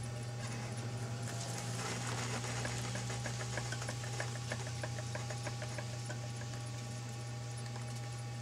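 Electric potter's wheel motor humming steadily while wet hands shape a spinning clay pot, with a run of soft rhythmic clicks a few times a second through the middle.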